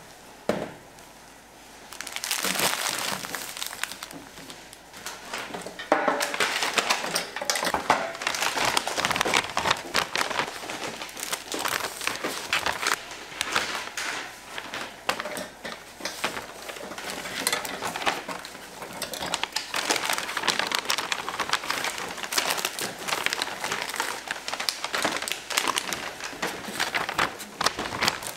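Plastic packaging crinkling and rustling as it is handled, in dense irregular crackles. It starts about two seconds in and gets busier and louder from about six seconds.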